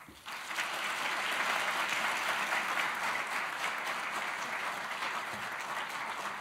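An audience applauding. It starts suddenly, holds steady, and slowly fades toward the end.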